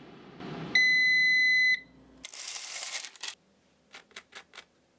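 Livingwell digital air fryer's end-of-timer beep: one steady electronic beep about a second long as the countdown reaches zero, the cook finished. A short rushing noise follows, then a quick run of crunches near the end as a knife cuts through the crisp toasted crust.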